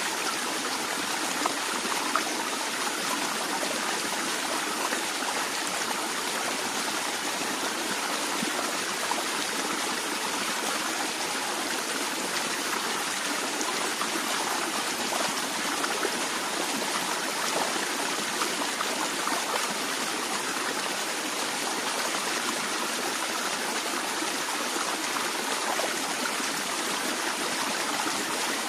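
Water flowing in a stream, a steady splashing rush with small trickles and gurgles over its surface.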